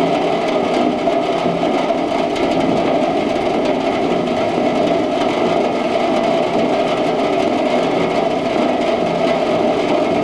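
Steady heavy rain falling.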